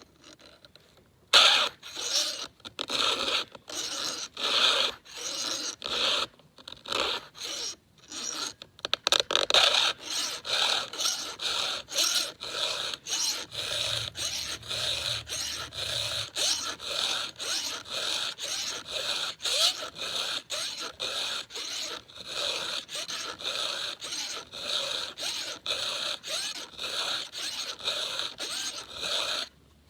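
Round chainsaw file rasping across the cutter teeth of a new, never-sharpened Husqvarna X-Cut saw chain, stroke after stroke. The strokes come slower and uneven at first, then settle into a steady rhythm of about two a second until they stop just before the end.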